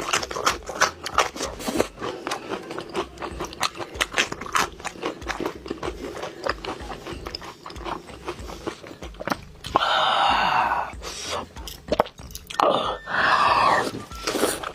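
Close-up crunchy chewing and biting, a dense run of sharp crunches, broken about ten seconds in and again near the end by two longer rough noisy sounds lasting about a second each.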